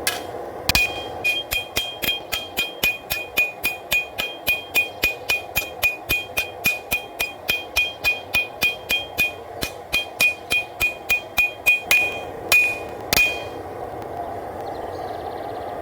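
Hand hammer striking hot W-2 steel on an anvil, about three blows a second, each with a bright metallic ring. This is forging to even up and thin the blade. The run pauses briefly about two-thirds of the way through and ends with two last separate blows.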